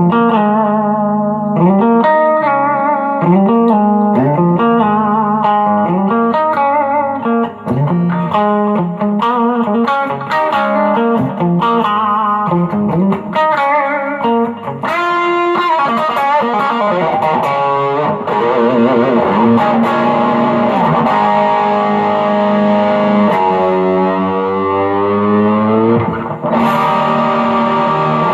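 M-Musi Virgo Fusion electric guitar played through a Quilter Super Block US amp and pedalboard. A run of quick picked single notes fills the first half, then held notes with vibrato and bends, one of them sliding down in pitch near the end.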